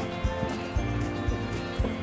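Background music with a steady beat, about two beats a second under held tones.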